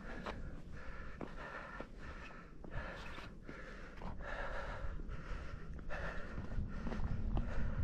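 A hiker breathing hard and rhythmically, a breath in or out roughly every second, with a few light clicks of steps or handling and a low wind rumble on the microphone.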